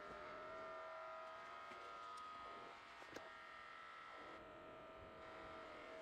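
Faint steady room hum with a few high steady whining tones, and a single sharp click about three seconds in.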